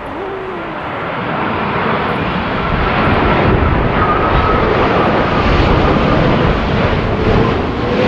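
Boeing 787-8 Dreamliner's GEnx turbofan engines on a low landing approach. The jet roar swells over the first few seconds as the airliner closes in, then holds loud, with a thin whine from the fans.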